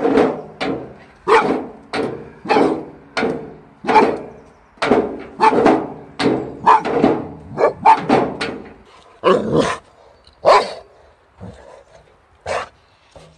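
A dog barking over and over, about two barks a second, then fewer and farther apart in the last few seconds.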